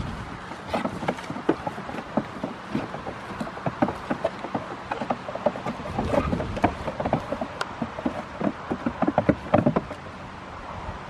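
Goat kids' hooves tapping and clattering irregularly on a wooden platform as they scuffle and spar. The knocks come thicker and louder between about six and ten seconds in.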